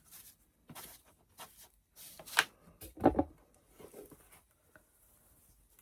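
Handling noises from crafting: brief rustles and a few sharp taps as material is smoothed and glued with Mod Podge around the sides of a box. The loudest knocks come about two and a half and three seconds in.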